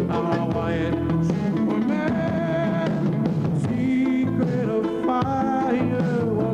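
A Hawaiian rock-and-roll song played over the helicopter's headset audio: an instrumental stretch between sung lines, with drums, bass and guitar, and some held sung notes.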